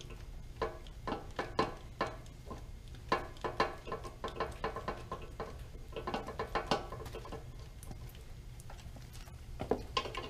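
Screwdriver turning the bottom drain screw back into the gearcase of a Yamaha 200 outboard's lower unit, after the gear oil fill: a run of irregular metallic clicks and ticks, coming in little runs with short pauses.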